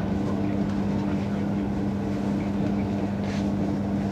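Class 312 electric multiple unit running at speed, heard from inside the coach: a steady low hum from the unit's electrical equipment over the rumble of wheels on the rails, with a brief hiss about three seconds in.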